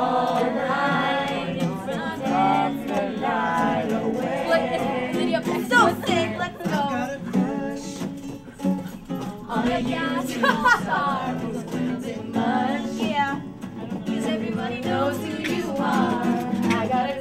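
Acoustic guitars playing while a group of people sing along together, unamplified.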